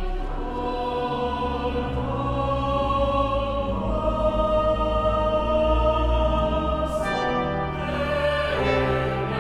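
Church choir singing slow, sustained chords over a deep held organ bass note in a large stone church; the harmony changes about seven seconds in.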